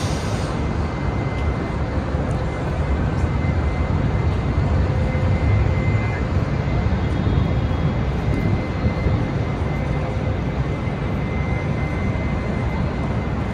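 Steady low rumble and hiss of outdoor city ambience, with a faint steady high tone running through it.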